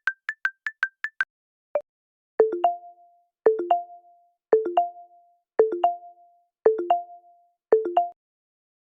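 Phone ringtone of short plinking, marimba-like notes: a quick run of about eight high notes, then a low two-note figure repeating about once a second.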